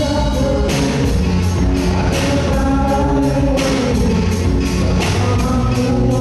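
A band playing a rock song, with drums keeping a steady beat and a singer.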